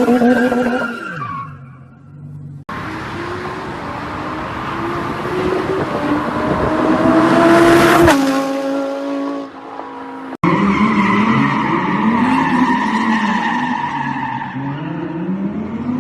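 Audi R8 engine revving hard while the tyres skid, heard in several clips with abrupt breaks between them. In the middle clip the engine note climbs steadily for several seconds, then drops back and holds lower. After a break about ten seconds in, the revving rises and falls over tyre noise.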